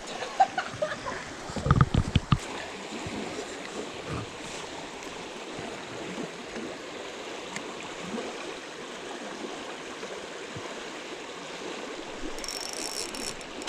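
Creek water running steadily, with a few thumps about two seconds in.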